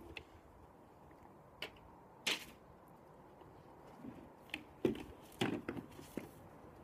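A few faint knocks and rustles from objects being handled by hand. The sharpest knock comes a little over two seconds in, and several more follow close together in the last few seconds.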